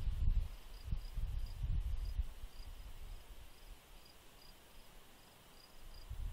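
An insect chirping steadily outdoors, short high chirps about three a second, over a low rumble that is loudest in the first two seconds and returns near the end.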